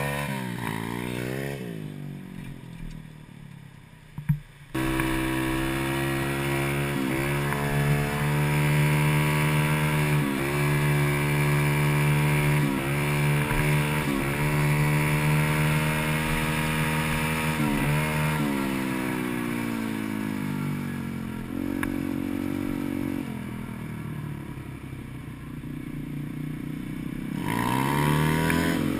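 Gio X33 140cc pit bike's single-cylinder four-stroke engine heard up close while riding. It winds down and drops to a low, quiet run, then picks up again about five seconds in with a click. It holds a steady pace with short dips in revs, eases off for a while, and revs up again near the end.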